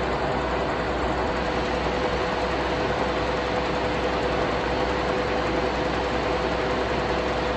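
Stanko 6A82III milling machine running steadily, its feed drive moving the table in longitudinal feed, with a steady mechanical hum and a constant whine.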